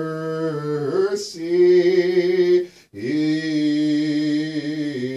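Solo male voice chanting an English Orthodox sticheron in the Grave tone, drawing out the melismatic closing phrase in long held notes that step down near the end, with quick breaths about a second in and just before three seconds.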